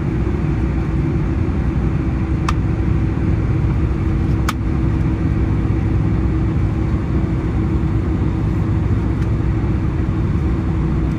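Cabin noise of a jet airliner taxiing: a steady low rumble from the idling engines and the wheels rolling on the taxiway, with a constant hum. Two short clicks come about two seconds apart, a couple of seconds in.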